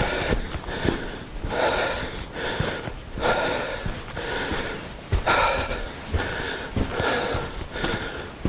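A person breathing hard close to the microphone while walking, with footsteps on loose slate underfoot.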